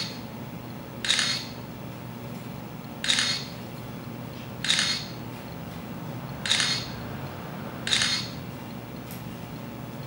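Camera shutter sound effect from the Duplicam photo app on an iPad, fired five times at uneven intervals of one to two seconds as the remote shutter button is pressed.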